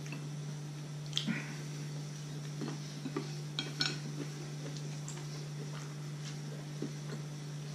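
Wooden chopsticks clicking against a ceramic plate as they are set down: a couple of light clicks about a second in, a few more around three to four seconds in, and faint taps later.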